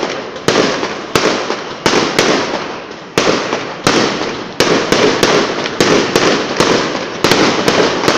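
Aerial firework shells bursting in a steady run of loud bangs, one every half-second to second and coming faster near the end, each fading away before the next.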